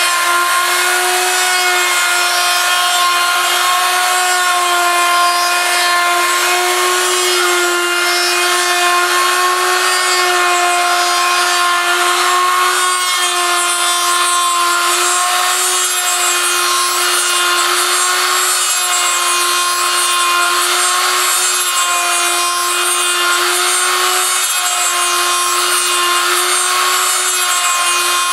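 High-speed rotary tool clamped in a homemade copy mill, running with a steady whine while its bit cuts a turning wooden lure blank, with the hiss of wood being milled over it.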